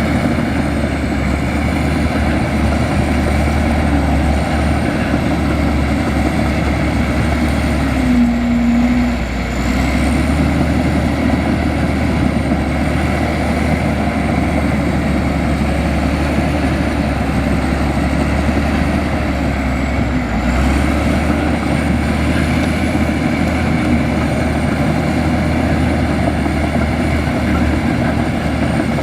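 Heavy diesel engine of a Komatsu bulldozer running steadily, with a faint high whine over a deep steady hum and a brief higher tone about eight seconds in.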